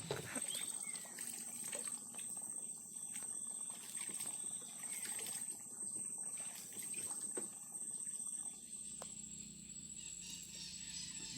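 Insects calling: a steady high-pitched trill with a pulsing chorus that swells about every second and a half, evening out near the end.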